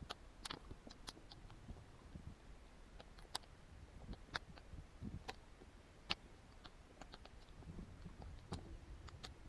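Faint, scattered clicks and smacks of a Labrador–pit bull cross's jaws snapping and lapping at a thin falling stream of water, about a dozen irregular clicks over a low rumble.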